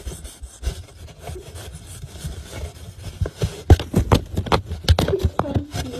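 Cat clawing and scrabbling at a cardboard box from inside, swiping its paw out through a hole cut in the side: quick scratching and rubbing on cardboard. The strokes get faster and louder about halfway through.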